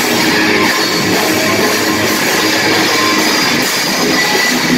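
Live rock band playing loud: two electric guitars, bass guitar and drums.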